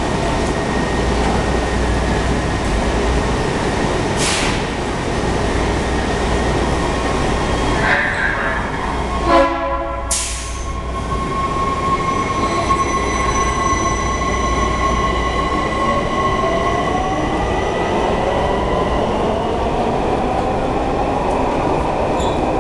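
Washington Metro train at a station platform: a brief loud signal tone sounds about nine seconds in, then the train pulls out, its motors whining upward in pitch as it speeds up, over the steady running noise of the cars.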